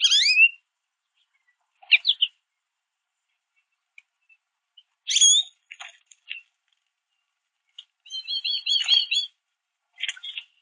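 American goldfinches calling: short high chirps and twitters in scattered bursts, with a quick run of about six repeated notes about three quarters of the way through.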